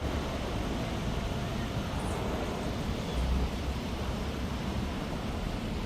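Steady low rumble of city traffic mixed with wind buffeting the microphone.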